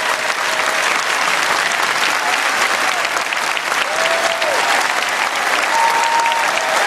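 Large theatre audience applauding steadily, with a few voices calling out over the clapping.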